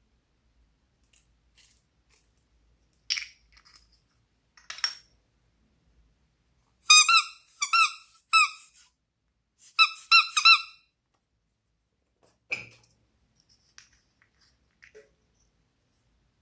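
Bursts of short, high squeaks, several in quick succession, as slime is squeezed and worked by hand, between a few soft clicks and crackles.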